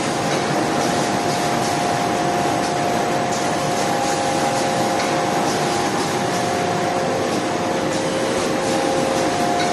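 Automatic roll-to-sheet A4 paper slitting and cross-cutting machine running: a steady mechanical hum with a few steady tones in it, and faint regular clicks over the top.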